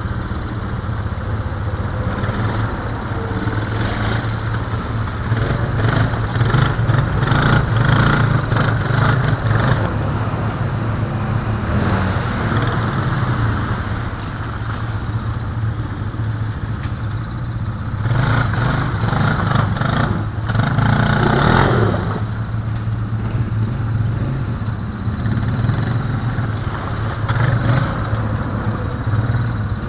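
ATV engines running steadily in a muddy ditch, with the throttle opened up in two louder stretches, about a fifth of the way in and again about two thirds in, as a quad works to climb its front end up out of the mud.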